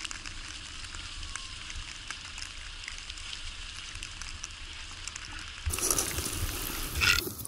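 Tyres hissing steadily through wet snow and slush while riding, with wind rumble on the microphone. About six seconds in, it switches abruptly to a louder, rougher rush of noise.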